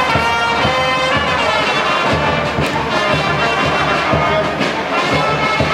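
Music played on brass instruments, trumpets and trombones, over a steady beat.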